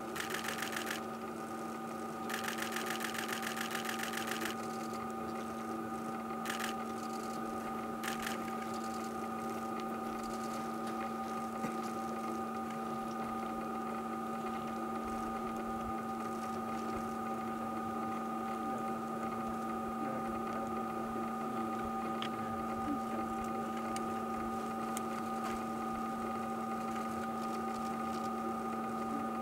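A steady mechanical hum holding several pitches. Two bursts of rapid clicking come in the first few seconds, and a couple of single clicks follow shortly after.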